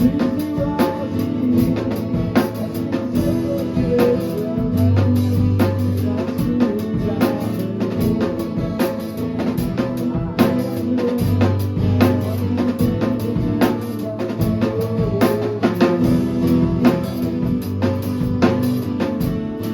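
Live band jamming: a drum kit keeps a steady beat under guitar, with a bass note that comes and goes.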